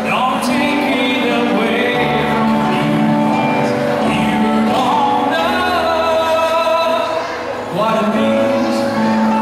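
A man singing live into a microphone, accompanied by an electronic keyboard.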